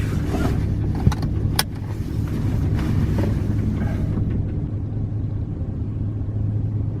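Motor vehicle running, a steady low rumble of engine and road noise, with a couple of sharp clicks in the first two seconds.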